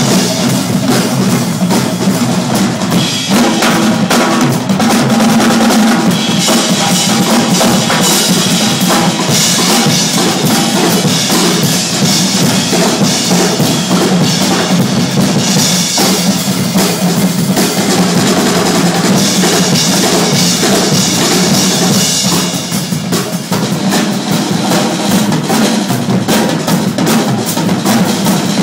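Live percussion ensemble drumming: a dense, continuous pattern of rapid strikes on drums, with bass-drum hits and snare and rim shots, loud throughout.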